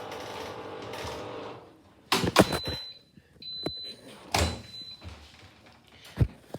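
A steady hum from the Candy washing machine cuts out about a second and a half in, followed by a run of clunks and thuds from its door being opened after the cycle, with a faint high tone between them.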